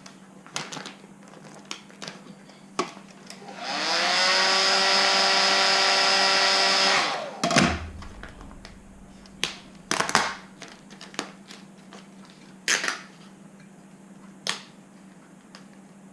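Heat gun switched on about three and a half seconds in: its fan motor whirs up to a steady whine, runs for about three and a half seconds, then winds down as it is switched off. A thump follows, and light clicks and taps of handling come before and after.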